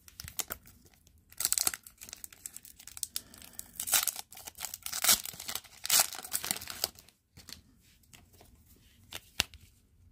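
A plastic hockey card pack wrapper being torn open and crinkled, in irregular bursts of tearing and rustling, with a sharp tick near the end as the cards are handled.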